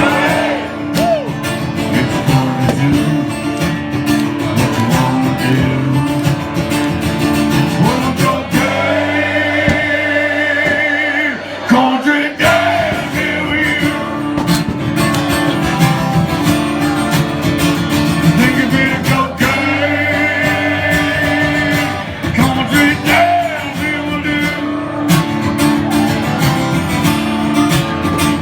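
Live country band playing loudly, with guitars, bass and drums, and a lead line of sustained notes that waver with vibrato at two points.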